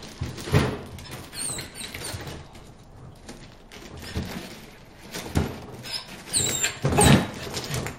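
A dog whimpering in short, high squeaks, with several sudden noisy hits; the loudest hits come about half a second in and near the end.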